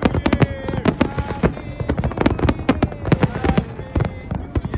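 Fireworks display going off: a dense run of bangs and crackles, several a second, with crowd voices calling out among them.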